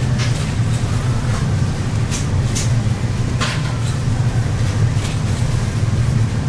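A steady low machine hum in a food stall's kitchen, with scattered sharp clinks and clatter of metal trays and utensils. One clink about three and a half seconds in rings briefly.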